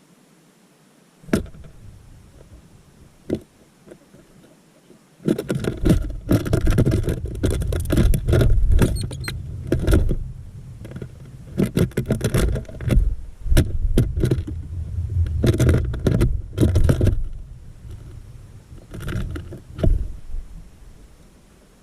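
Irregular knocks and taps with a heavy low rumble, close to the microphone. Two single knocks come first, then a dense run of them for about twelve seconds, and a few more near the end.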